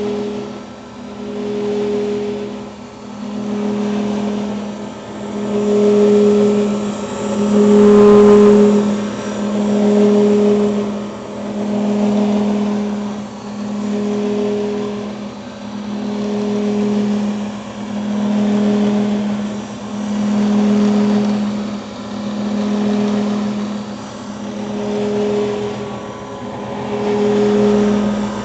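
Grizzly G3103 milling machine's belt-driven spindle running at about 2,220 RPM, its hum swelling and fading evenly about once every two seconds. This pulsating noise at high RPM is the fault the owner is reporting.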